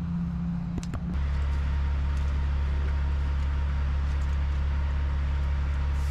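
Steady low mechanical hum, changing slightly about a second in, with a few faint clicks.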